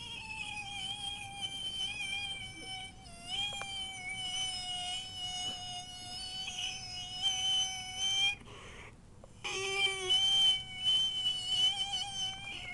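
A person making a long, high, steady whining noise with the voice, slightly wavering in pitch. It is held for about eight seconds, breaks off briefly, then comes back for about four seconds more.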